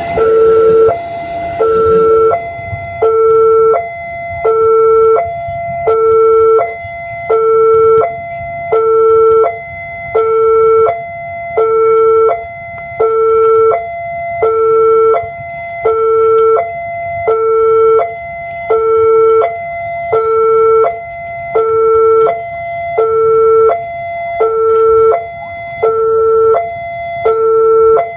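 Railway level-crossing warning alarm sounding a loud electronic two-tone signal, alternating evenly between a low and a higher tone, each held for under a second. For the first two seconds the noise of a passing KRL commuter train runs underneath, then fades.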